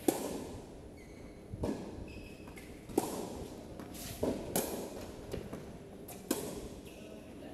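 Tennis ball struck by rackets and bouncing on a hard court during a doubles rally: sharp pops every second or so, six in all, the loudest about three seconds in and near the end.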